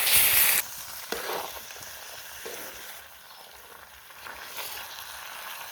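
Turkey pieces and masala sizzling in an iron pan as they are stirred, with a few short scrapes of the spoon against the pan. The sizzle is loud for about the first half second, then drops suddenly to a softer, steady sizzle.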